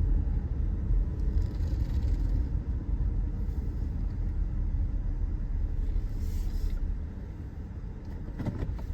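Low steady rumble of a car heard from inside the cabin, easing off about seven seconds in.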